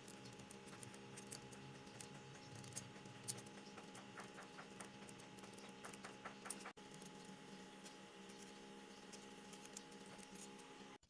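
Utility-knife blade cutting and scraping popsicle-stick wood: a run of faint, irregular clicks and scrapes, a few sharper snaps among them, over a steady low electrical-sounding hum.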